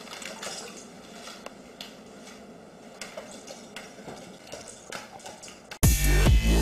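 Faint, scattered light taps and clicks over room noise, then loud electronic music with a beat starts abruptly near the end.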